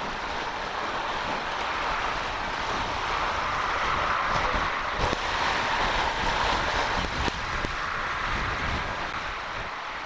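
Steady rushing roar of storm wind over the river and city, swelling in the middle, with a couple of faint distant firework thuds about five and seven seconds in.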